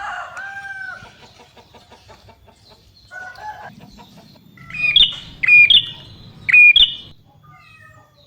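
Bird calls: a drawn-out call near the start, a shorter one about three seconds in, then four loud, shrill calls between about five and seven seconds in.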